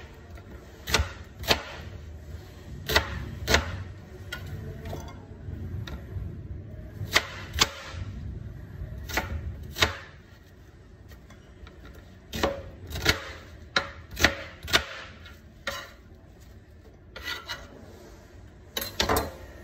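Kitchen knife cutting a white onion on a cutting board: irregular sharp knocks of the blade hitting the board, often in quick pairs, with short pauses between cuts.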